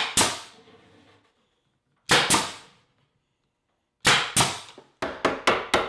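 Pneumatic brad nailer firing brads into the cabinet's plywood edge: sharp single shots and pairs with pauses between. Near the end comes a quicker run of sharp knocks, about five a second.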